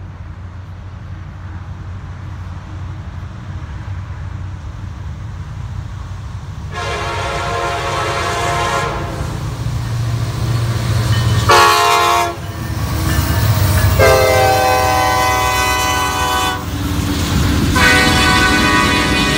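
Norfolk Southern SD60E diesel locomotive approaching, its engine rumble growing louder, then sounding its Nathan K5LA five-chime air horn for the grade crossing. There are four blasts: a long one about seven seconds in, a short one near the middle, and two long ones toward the end.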